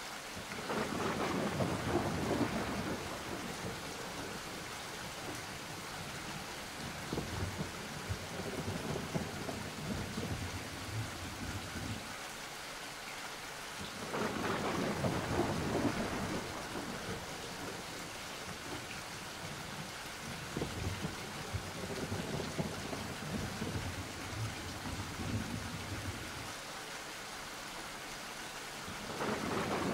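Steady rain with rolls of thunder: one rumbles in just after the start, another about halfway through, and a third begins at the very end.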